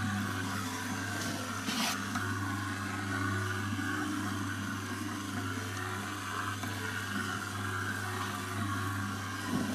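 Boilie dough mixer running steadily with a low hum, its six mixing fingers turning dough around a steel pot with a continuous scraping and rubbing. A brief harsher scrape comes about two seconds in.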